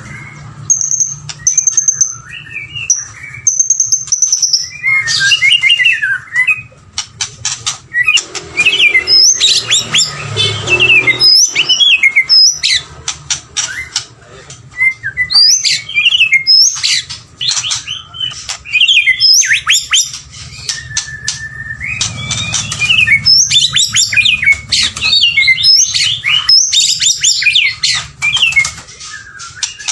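White-rumped shama singing: a varied song of clear high whistles and fast, chattering phrases with short pauses between them. It starts with a few sparse whistles and turns to dense, rapid phrases after about five seconds, over a faint steady low hum.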